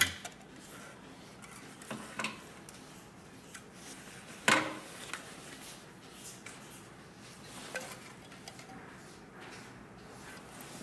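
Scattered clicks and knocks as a cylinder-bed walking-foot sewing machine and its workpiece are handled between seams, with the machine stopped. The loudest knock comes about four and a half seconds in.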